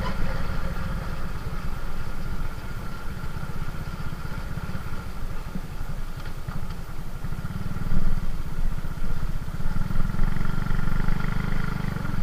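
Motorcycle engine running while riding along a road, with a low rumble of wind and road noise; it gets louder about eight seconds in and again near the end.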